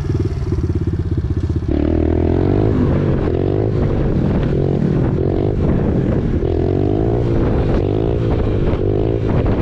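Small dirt bike engine running, its revs rising and falling again and again from about two seconds in as the throttle is worked.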